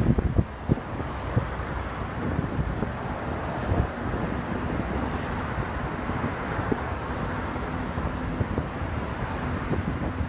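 Wind buffeting the microphone in irregular gusts, with low thumps over a steady rushing noise.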